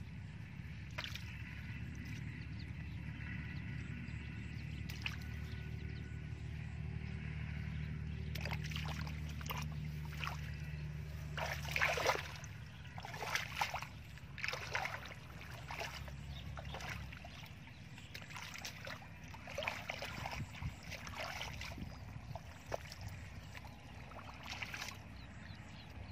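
Irregular splashing and squelching in shallow muddy water as fish are grabbed by hand and feet wade through the mud, busiest from about a third of the way in. A steady low drone runs underneath and fades out about two-thirds through.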